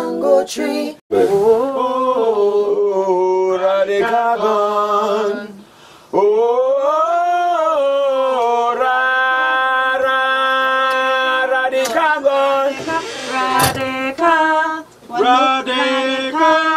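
Unaccompanied singing voices holding long, drawn-out notes. About six seconds in, one note slides up, settles and is held for several seconds, with short breaks between phrases.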